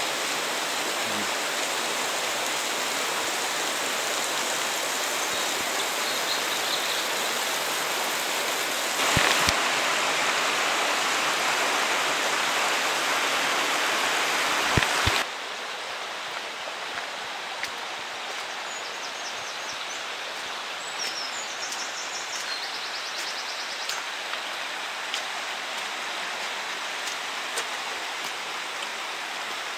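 Water of a small waterfall and a rocky Highland burn rushing steadily over stones. It gets louder for about six seconds a third of the way in, then drops suddenly to a softer rush for the second half.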